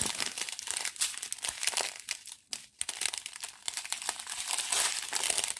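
Small plastic bags of diamond painting drills being handled, crinkling, with a couple of brief pauses about two and a half seconds in.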